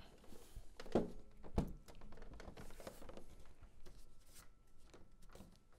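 Handling noise of a Telefunken flat-screen TV being turned round and set upright: two dull knocks about a second and a second and a half in, with faint scattered rustles and taps around them.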